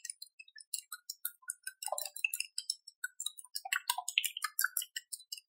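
Chopsticks beating raw eggs in a glass bowl: rapid, irregular clicks and clinks of the chopstick tips striking the glass, with soft wet sloshing of the egg.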